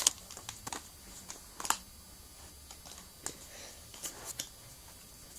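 Pokémon trading cards being handled and sorted by hand after a booster pack is opened: a scattered series of light clicks and taps, with the sharpest about a second and a half in.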